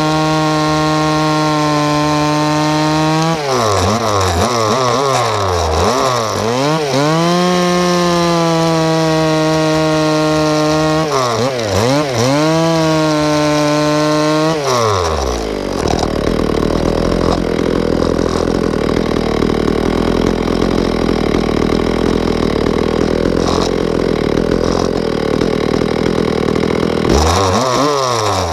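Two-stroke gas chainsaw cutting through logs, heard close up from a camera mounted on the saw. The engine holds a steady high pitch at first, then repeatedly dips and sweeps back up as the chain loads and frees in the wood. A long stretch in the middle is a dense, even noise without a clear pitch, and the dipping pitch returns near the end.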